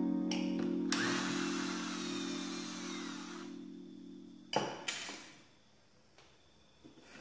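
Cordless drill-driver running on a screw for about two and a half seconds, its pitch wavering, then two sharp knocks a few tenths of a second apart as the drill is set down on the table.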